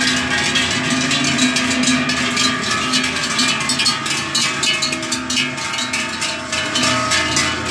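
Large cowbells on leather neck straps clanging irregularly as a herd of cows walks past, many bells overlapping with ringing tones under the dense clanks.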